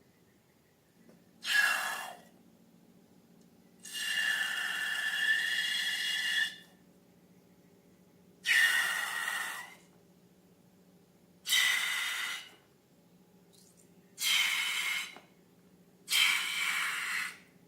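Air squealing and hissing out of a balloon's neck in six separate bursts, each a high, wavering squeal over a hiss, the second one the longest at nearly three seconds.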